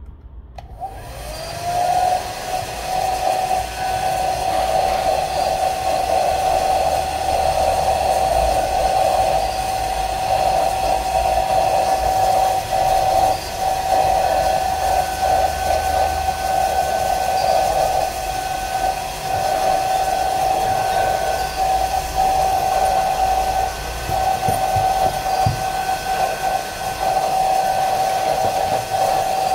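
Hair dryer running steadily, blowing hot air to soften the double-sided tape of a phone's back cover. Its motor spins up to a steady whine over the first two seconds.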